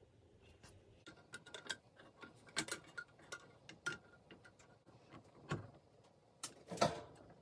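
Irregular light metal clicks and taps as a 1950s GE desk fan's blade and wire guard are handled and fitted together during reassembly, with a louder knock near the end.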